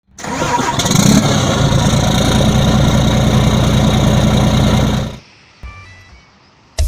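Heavy truck diesel engine running loud and steady, cutting off abruptly about five seconds in, followed by a quieter stretch of faint background noise.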